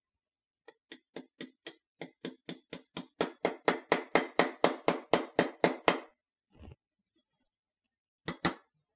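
Small brass-faced hammer tapping the extractor retaining pin into a Zastava M70 pistol's steel slide. A quick, even run of light taps about four a second grows louder about three seconds in and stops near six seconds, then one faint tap and two more sharp taps near the end.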